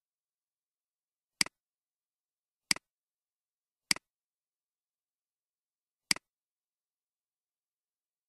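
Computer mouse clicks: four single clicks spaced a second or two apart, each a sharp tick followed at once by a softer one as the button is pressed and released.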